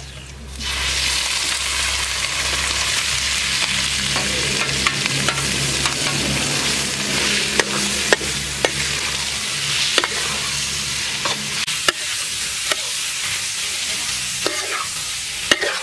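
Sliced pig liver hitting a hot oiled steel wok and sizzling, the sizzle starting suddenly about half a second in, then stir-fried with a metal ladle that clicks and scrapes against the wok now and then.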